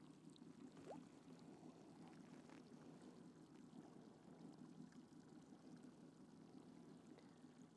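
Near silence, with faint water lapping as a hand releases a fish into the lake beside an aluminium boat hull.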